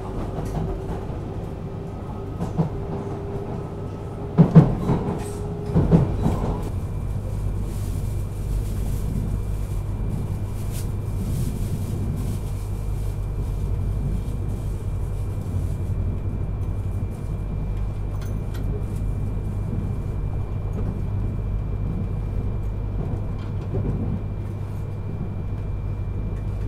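Yamagata Shinkansen Tsubasa train running, heard inside a passenger car: a steady low rumble with a few sharp knocks about four and a half and six seconds in. A held hum fades out at about six seconds, and a faint steady high tone carries on after it.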